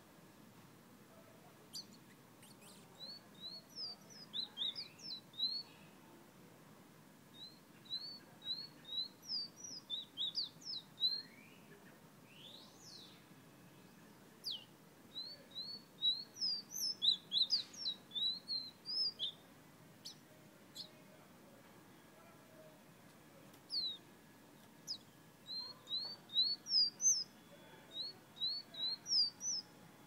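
Caged songbird singing in phrases of quick, high whistled notes, several notes a second. The phrases come every few seconds with short pauses between them.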